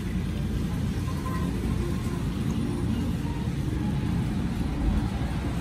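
Steady low background rumble with no clear knocks or clicks.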